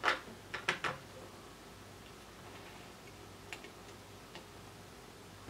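Light clicks and taps of a small circuit board being handled and fitted into the metal alligator clips of a helping-hands stand: four sharp clicks in the first second, then two faint ticks a few seconds later.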